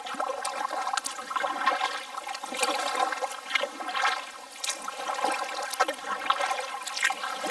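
Kayak paddle dipping and pulling through calm water, with irregular splashes and water trickling off the blades.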